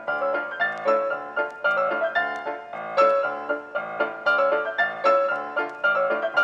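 Background music: a piano-like keyboard playing a quick run of plucked-sounding notes at an even pace.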